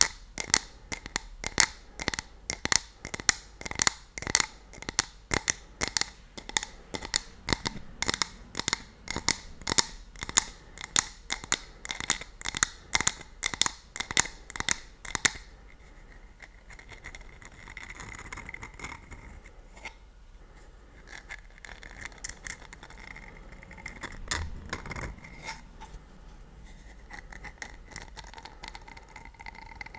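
Fingernails tapping quickly on a small decorated cup held close to the microphone, several crisp taps a second. About fifteen seconds in, the taps stop and give way to softer scratching and rubbing on the cup's surface.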